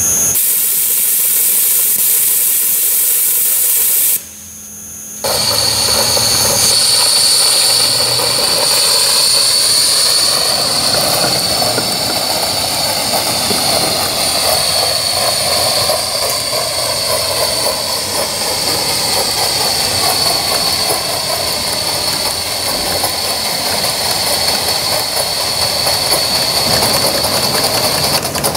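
Aster Gauge 1 live-steam GWR pannier tank locomotive running, giving a steady steam hiss with a constant high tone over it. The sound drops out briefly about four seconds in, then carries on.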